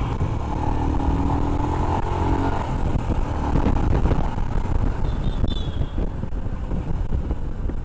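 Motorcycle engine on its stock silencer running steadily under way, its note rising briefly about a second in, with road traffic around.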